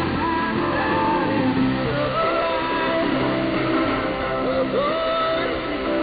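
A song with singing, received from a shortwave AM broadcast on 5835 kHz. The sound is cut off above about 5 kHz by the receiver's AM filter.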